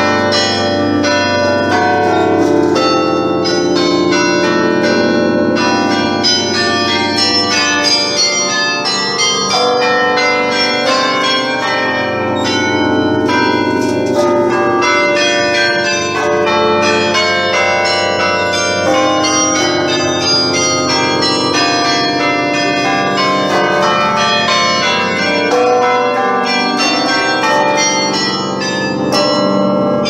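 Carillon of the Belfry of Bruges playing a tune: many tuned bells struck in quick succession, their notes ringing over one another.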